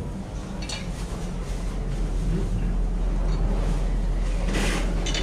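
Steady low rumble and hum of an electronics assembly hall, with a brief hiss about four and a half seconds in.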